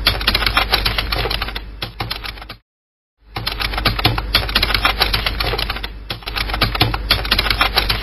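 Typing sound effect: a rapid, continuous run of typewriter-style key clicks. It stops briefly about two and a half seconds in, then starts again.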